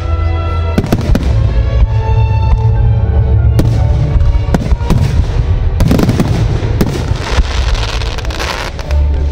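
Aerial firework shells bursting with sharp bangs over music playing with the display, then a dense crackling of glittering stars a little past halfway.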